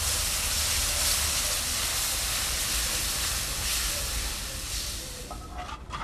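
A steady, loud hissing noise that eases off near the end, with a low hum beneath it.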